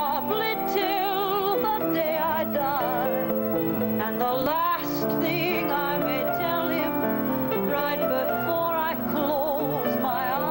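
Female singer holding long, soaring notes with a wide vibrato, over piano accompaniment.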